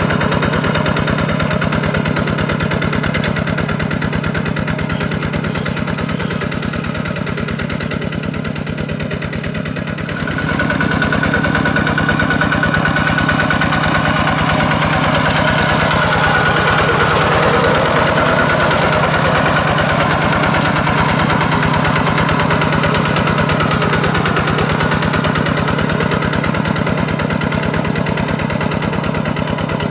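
Single-cylinder diesel engine of a Kubota RT140 walking tractor running steadily under load while pulling a disc plough through paddy mud. It gets louder about ten seconds in.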